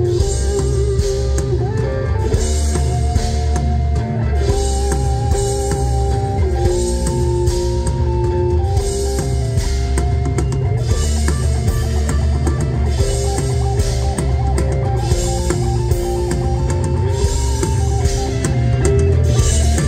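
Rock band playing live through a stage PA, with no vocals: drum kit and bass guitar keeping a steady beat under electric guitars, one carrying a lead melody of long, wavering held notes.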